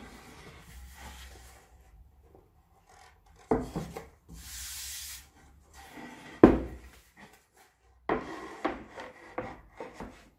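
Plywood boards being handled on a wooden work table: rubbing and sliding of wood on wood, with a few sharp knocks as boards are set down, the loudest about six and a half seconds in, and a flurry of rubs and light knocks near the end.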